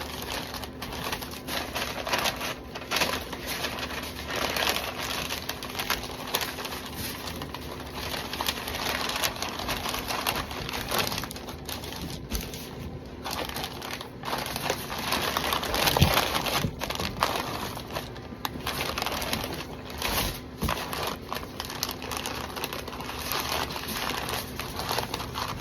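A smoked brisket being rolled up tightly in its wrap: continuous crinkling and rustling of the wrapping with small handling knocks, a little louder about two-thirds of the way through.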